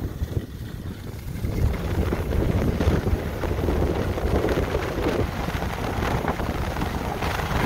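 Wind rushing over the microphone of a moving skier, with the steady scrape and hiss of skis sliding over groomed snow.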